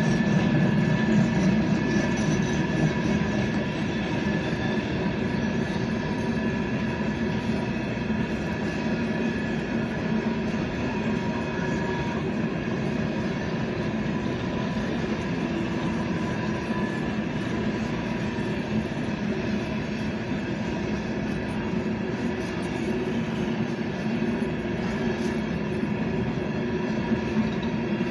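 Train running on rails, a steady rumble with a faint high whine held over it throughout, a little louder in the first few seconds.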